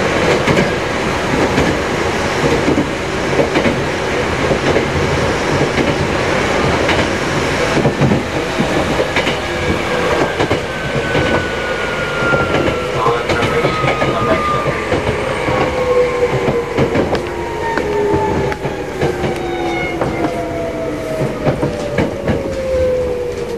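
Keikyu old 1000-series electric train running, with clicking over rail joints and a motor whine that falls steadily in pitch through the second half as the train slows. Recorded on cassette tape.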